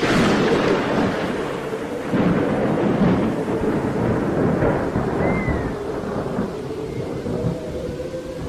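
Thunder crashes in suddenly, surges again about two seconds in, then rolls away over a rain-like hiss and a steady low drone. A short high squeal rises and falls about five seconds in.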